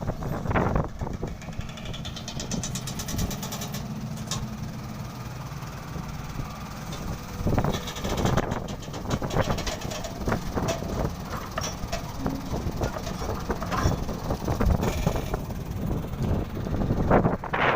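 Excavator diesel engine running steadily while loading soil into a dump truck, with several louder surges and knocks, the strongest about seven and a half seconds in and near the end.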